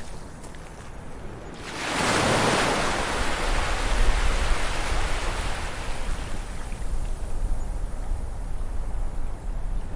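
Ocean surf: a wave swells about two seconds in, breaks and washes out slowly over several seconds, over a low rumble.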